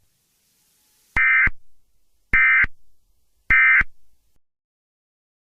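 Emergency Alert System end-of-message (EOM) data tones: three short, identical buzzing bursts of SAME digital code a little over a second apart, marking the end of the alert.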